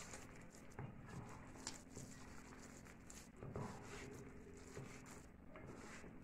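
Faint soft squishing and rustling of a hand kneading sliced onions and flour into a thick batter in a steel bowl, with scattered light taps, over a faint steady low hum.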